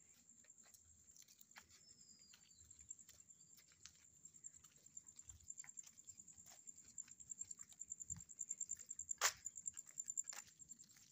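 Quiet footsteps of people walking on a dirt lane under a steady, high-pitched pulsing chirr, with one sharp click about nine seconds in.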